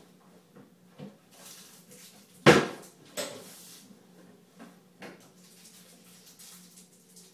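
A sharp, loud knock about two and a half seconds in, ringing briefly, followed by a second, softer clatter, with scattered light clicks over a steady low hum.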